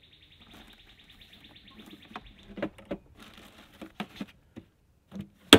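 Knocks and clatter from a cooler being opened and rummaged for a can of beer, with a sharp, loud knock near the end. An insect trills in the background, breaking off about two seconds in and returning briefly.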